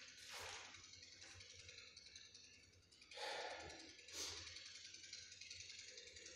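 Near silence: room tone with a few faint, brief noises.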